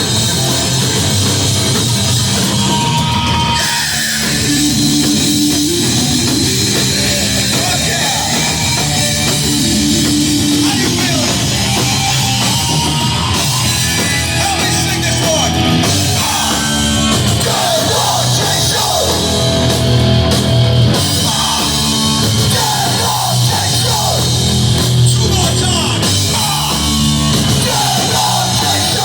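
A hardcore band playing loud and live, with distorted guitars, bass and a drum kit.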